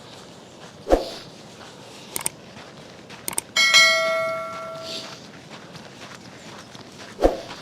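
A single small metal bell struck once, ringing and fading over about a second and a half, with a couple of light clicks just before it. There are two heavy thumps, about a second in and near the end, from footsteps on the frozen towpath.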